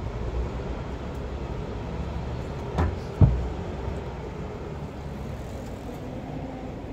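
Steady low rumble of city street traffic, with two sharp knocks a moment apart about three seconds in, the second one louder.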